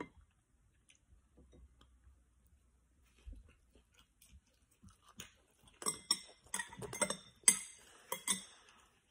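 Mostly quiet, then a quick run of sharp clicks and clinks over about three seconds, loudest near the end: eating sounds from a metal fork and dish while a dumpling is bitten and chewed.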